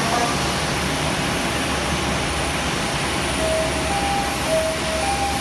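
Jet airliner engines running, a steady rushing noise with no rise or fall.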